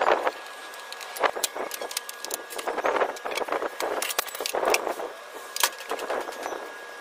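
Plywood panels and metal folding angle brackets being handled on a workbench: an irregular series of knocks, clatters and short scrapes as a board is shifted and brackets are set down.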